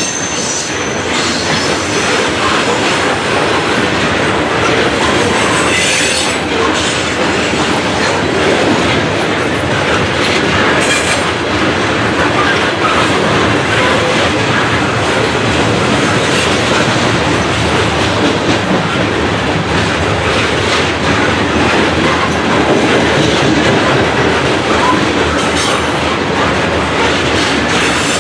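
CSX coal train's loaded hopper cars rolling past, a steady loud rumble and clatter of steel wheels on rail joints, with a few brief high wheel squeals.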